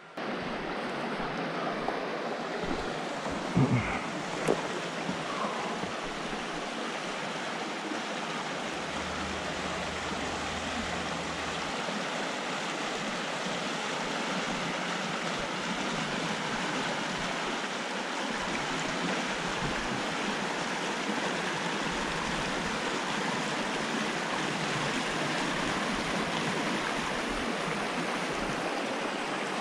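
Creek water rushing over a shallow riffle: a steady, even hiss of flowing water. A couple of brief knocks stand out about four seconds in.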